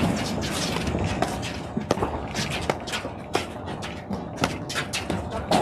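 Platform tennis rally: a quick, irregular series of sharp knocks, about two a second, as the paddles strike the ball, with footsteps on the court deck between them.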